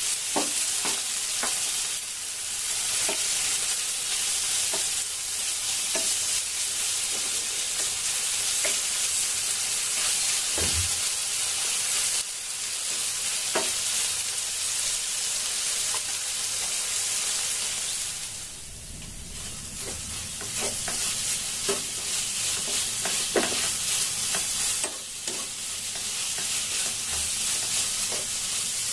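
Sliced marinated beef sizzling as it fries in a nonstick pan, turned with metal tongs and then stirred with a wooden spatula, with light clicks and scrapes of the utensils against the pan. The sizzle dips briefly about two-thirds of the way through.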